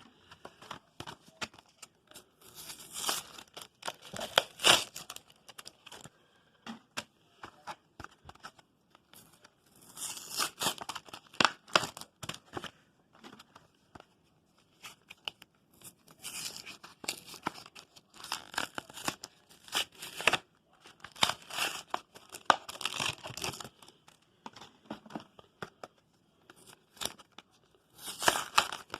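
Foil Yu-Gi-Oh booster pack wrappers being torn open and crinkled, in repeated bursts of tearing with short pauses between.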